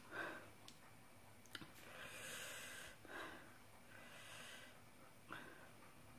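Faint breathing while eating spicy food, several soft breaths each about a second long, with a few small clicks.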